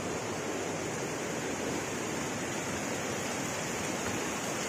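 Water running over rocks: a steady, even rush of flowing stream water, with a small freshwater trickle spilling down a rock face.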